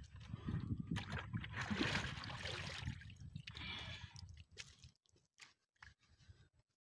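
Water poured out of a plastic bucket, splashing and gurgling into a shallow muddy pool for about four seconds, then tailing off to a few faint drips.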